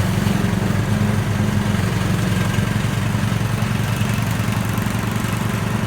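Ride-on lawn mower engine running steadily at a constant speed.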